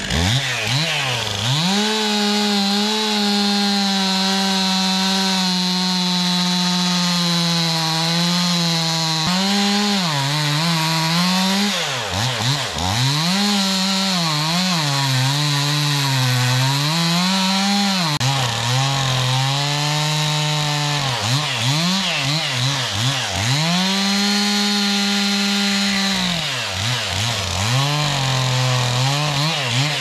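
Two-stroke chainsaw cutting through a large red oak trunk: it revs up at the start, then its pitch sags again and again as the chain bogs down in the hardwood and recovers as the cut eases.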